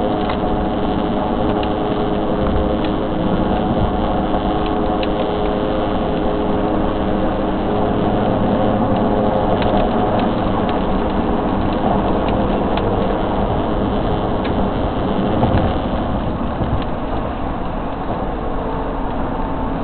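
Steady road noise of a vehicle driving at highway speed, heard inside the cabin: tyre and engine drone with a low steady hum.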